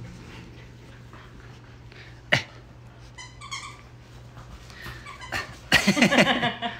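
Pembroke Welsh corgis playing: a sharp knock about two seconds in, a short whine a second later, then a loud burst of barking near the end.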